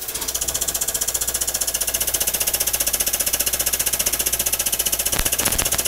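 Air-powered pump running with a fast, steady pulse, driving the air-over-hydraulic shop press, with a few sharp clicks near the end.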